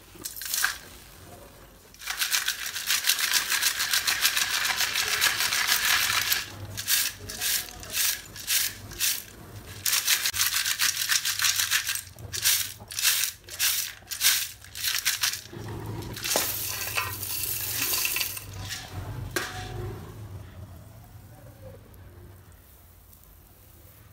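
Broken pieces of roasted multani mitti (fuller's earth) rattling and scraping in a metal sieve as it is shaken to sift out the crumbs. The sieve is shaken in long steady stretches, with runs of separate shakes about two a second between them, and the sound dies away near the end.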